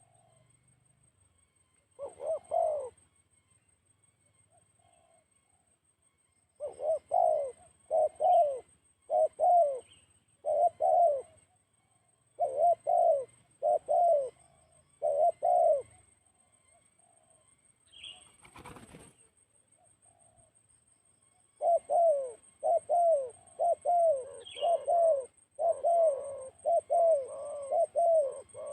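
Spotted dove (tekukur) cooing, with repeated low, rolling coo phrases in several runs that grow longer and more continuous near the end. A brief rustle or flutter comes between two runs, and a faint steady high whine lies under everything.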